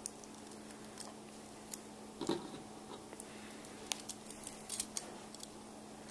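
Small metal strips, bolts and nuts of a toy robot construction kit clicking and clinking as they are handled and fitted together: scattered light clicks, a stronger one about two seconds in, and a quick run of clicks about four seconds in.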